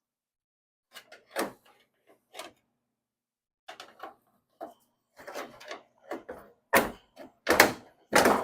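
Big pry bar levering a crumpled sheet-metal attachment off a 1966 Mustang's rear body: a run of separate metal clunks and creaks, sparse at first, then louder and closer together near the end as the attachment breaks loose.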